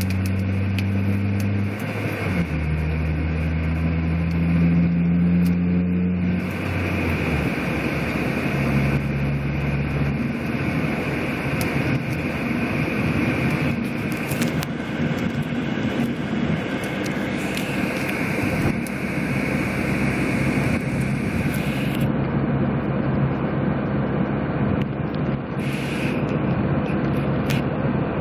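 Car cabin noise while driving through a haboob dust storm: a steady rush of wind and road noise over a low engine hum, which steps in pitch a few times in the first several seconds.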